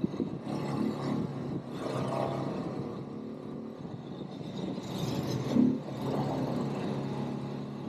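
ATV (quad bike) engine running while being ridden, its pitch rising and falling with the throttle, a brief louder surge about five and a half seconds in.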